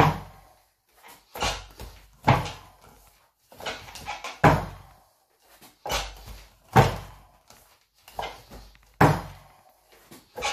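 Knocks and thumps of hand strikes on a wooden training dummy: hands slapping and pressing its wooden arms and fists landing on its padded body, with a brief ring after each hit. The hits come mostly in pairs, a pair about every two seconds.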